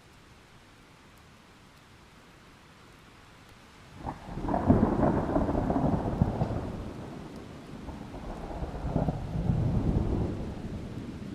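Thunder: after a few seconds of faint steady hiss, a sharp crack about four seconds in opens a loud, low rumble that fades, swells a second time near the end, then tails off.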